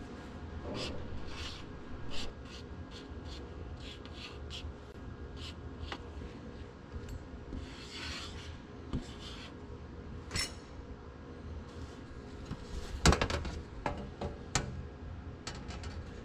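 Hand tools and small metal parts being handled in a workshop: a run of light clicks, taps and rubbing, with a louder knock about 13 seconds in.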